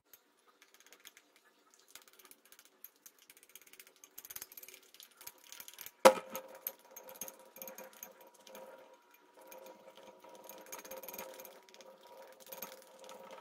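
Plastic utensil stirring and scraping glue and glitter in a glass bowl, in faint irregular clicks and scrapes. About six seconds in there is one sharp knock as the glass bowl is set down on the table, and the stirring goes on after it over a faint steady tone.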